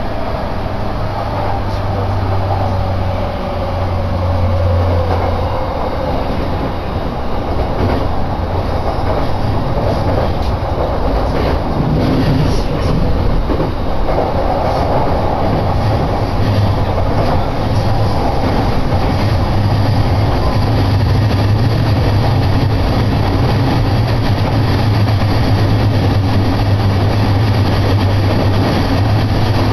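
Tokaido Line commuter train heard from inside the carriage while running: steady rumble and running noise with a low hum, and a whine falling in pitch over the first few seconds.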